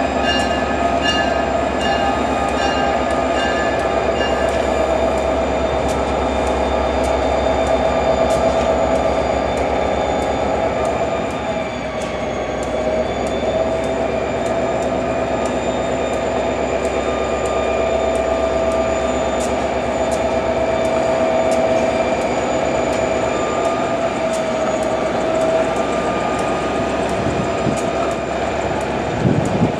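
EMD GP40PH-2 diesel locomotive running slowly around a tight curve with a passenger car, its engine giving a steady rumble under sustained high squealing from the wheels on the curved rail.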